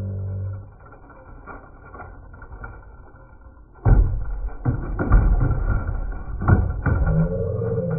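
Two toy monster trucks rolling down a wooden plank with faint ticking, then clattering loudly into a plastic sled just before four seconds in and rattling and knocking along its plastic bed for a few seconds.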